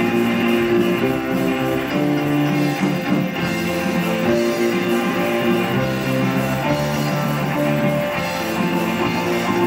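Live rock band playing: electric guitar, electric bass and a drum kit, with held notes and chords changing every second or so.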